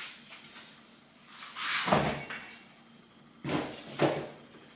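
Sliding wardrobe door rolling along its track about two seconds in, then sliding again with a knock as it stops near the end.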